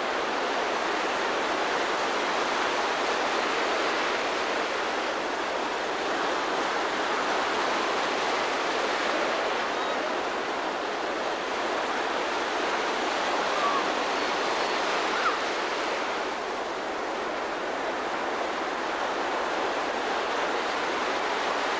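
Ocean surf breaking and washing up the shore: a steady, unbroken rush of noise.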